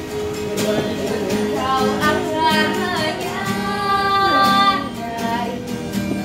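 A woman busker singing a melodic line with sustained, wavering notes over instrumental accompaniment with a steady beat.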